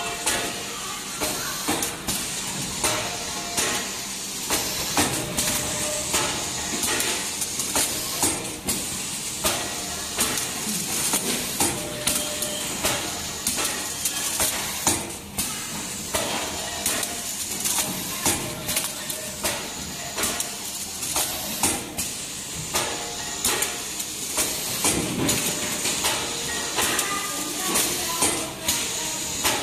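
GZP-150 servo-driven flow-wrap packing machine running: a steady hiss with frequent sharp clicks and clacks from its mechanism, about one or two a second.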